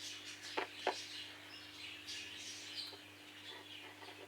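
Faint high bird chirps over a low steady hum, with two sharp clicks in the first second.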